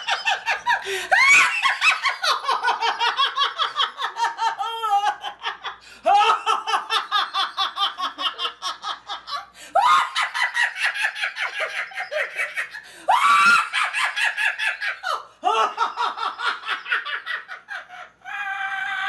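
High-pitched laughter in rapid pulses, in several laughing bursts of a few seconds each that cut abruptly one into the next.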